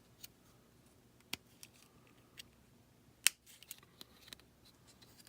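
Small plastic toy parts clicking and tapping as they are handled and fitted together, a handful of separate clicks with one sharp, louder snap a little past three seconds in.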